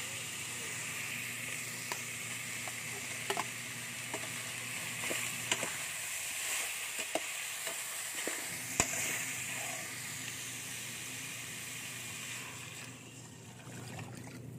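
Pork pieces sizzling as they sauté in a stainless steel pot, with a metal spoon clicking and scraping against the pot now and then. The sizzling dies down near the end as water is poured in.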